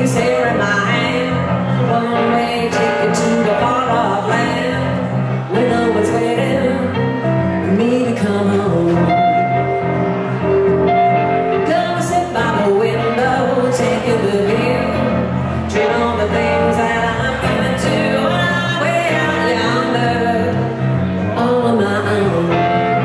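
Live amplified band music: a hollow-body electric guitar and an electric keyboard playing together, with singing.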